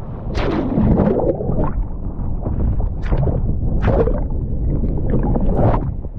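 Wind buffeting the microphone in a steady low rumble, with water splashing in separate bursts about five times.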